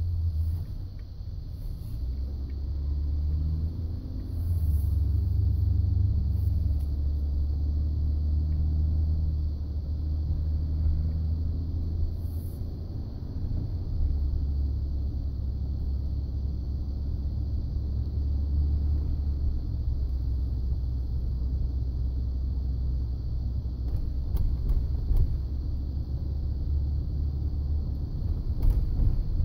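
Ford F-150 pickup giving a steady low rumble, which shifts in pitch a few times, about 4 and 14 seconds in.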